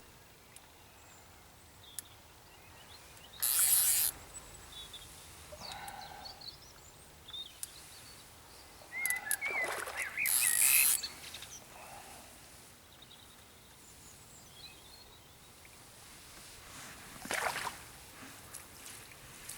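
Quiet waterside ambience with small birds chirping on and off, broken by three short bursts of noise: one about three seconds in, one about ten seconds in and one near the end.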